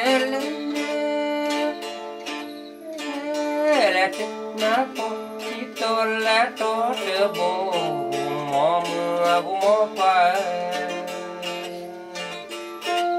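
Music by a local Karen musician: a plucked string instrument picks out a melody, with a voice singing along in gliding phrases.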